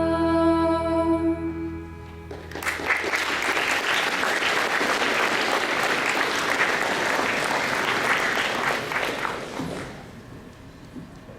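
The last held note of a song ends about two seconds in, and then the audience claps for about seven seconds, fading out near the end.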